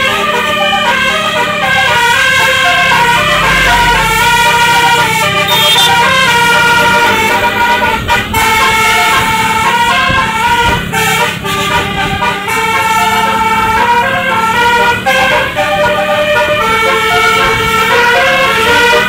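Basuri telolet bus horn playing a melody nonstop: quick runs of stepped multi-tone notes, repeated over and over above a steady low hum.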